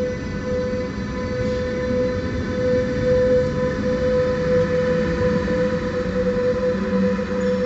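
Koleje Mazowieckie double-deck electric commuter train rolling past alongside the platform: a continuous rumble of wheels on the rails under a steady, unchanging electric whine.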